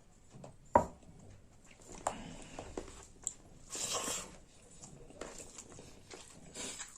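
Close-up mouth sounds of eating rice and saag: chewing and wet smacking, with a sharp click about a second in and a longer noisy smack around four seconds.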